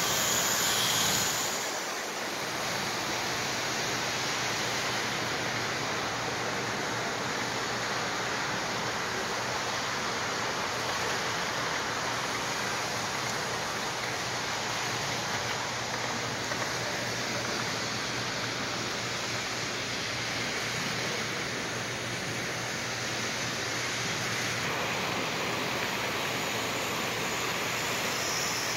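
Steady rushing rumble of an O scale model train running close by on two-rail track: the brass Great Northern P2 4-8-2 locomotive and heavy kit-built reefer cars rolling on metal rails, with a low steady hum underneath.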